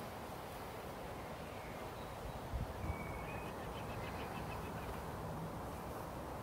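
Steady outdoor background noise with a bird chirping briefly, a short run of quick high notes a few seconds in. Two dull low thumps come just before the chirps.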